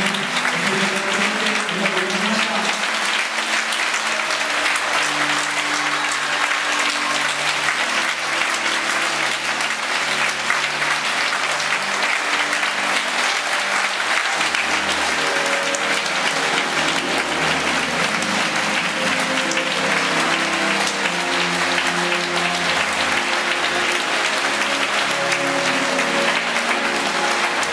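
A concert hall audience applauding steadily, with quiet music playing underneath.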